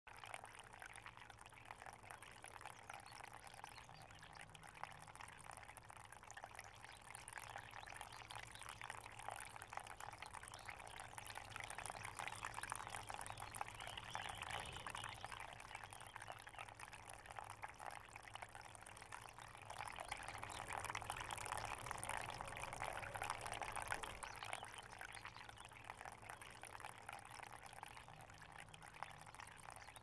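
Small resin Buddha tabletop fountain: a thin stream of water trickling from the bowl in the figure's hands into the lotus basin, a steady quiet splashing. It grows a little louder about halfway through and again about two-thirds of the way in.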